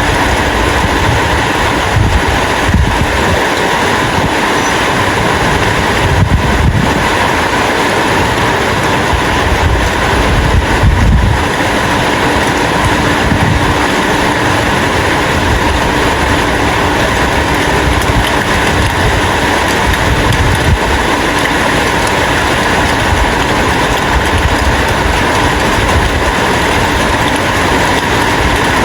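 Heavy rain falling steadily, with some low rumbling swells throughout.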